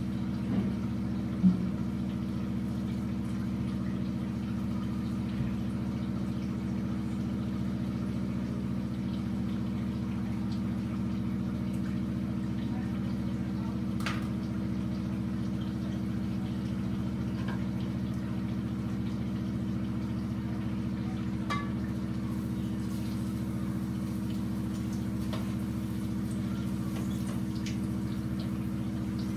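A steady low hum, with a few faint clicks; the sharpest comes about a second and a half in.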